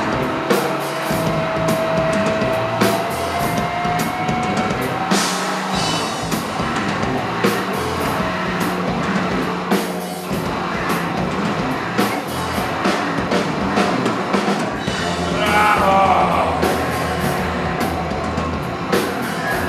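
Live experimental band music: drum hits over sustained low synthesizer or bass tones, with an electronic tone gliding slowly upward over the first few seconds and wavering falling tones near the end.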